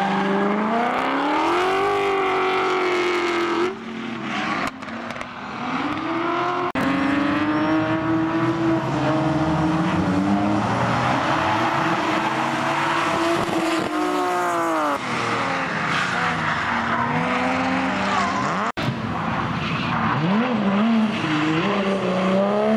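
Drift cars' engines revving and falling as the cars slide through corners, over tyre squeal and hiss. The sound breaks off abruptly three times, about 4, 7 and 19 seconds in, as it switches from one car to another.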